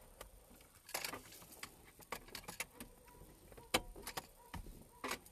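A few scattered, light metallic clicks and taps as a long socket extension is worked into the groove behind a Toyota Prius steering wheel and pushed against the airbag's metal retaining clip to release it.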